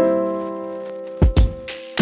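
Background music: a held piano chord, with drum beats coming in a little over a second in.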